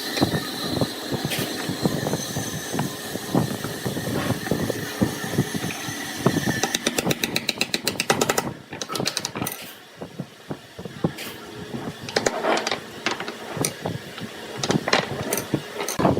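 Wood lathe running while a turning tool cuts the spinning wood, giving irregular scraping and knocking. Midway there is a quick, even clatter of about eight knocks a second for a couple of seconds.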